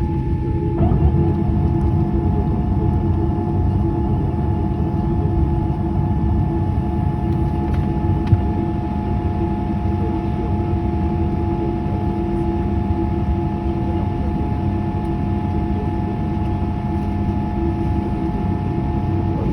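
Steady rumble with a steady whine heard inside the cabin of a Boeing 787-8 after landing. One whine tone steps slightly lower about a second in.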